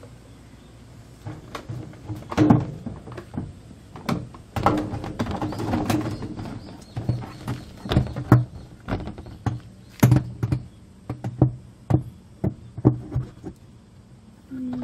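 The plastic inner spin tub of a top-loading washing machine knocking and scraping against the outer tub as it is lowered in and worked down onto the drive shaft: a run of sharp plastic knocks and clatters, with a burst of rattling scrapes a few seconds in.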